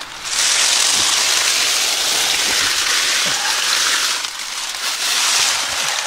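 Dry fallen leaves crunching and rustling loudly as a person crawls through a thick pile of them, with a few soft thumps of knees and hands pressing down. The noise runs in two long stretches with a brief lull about four seconds in.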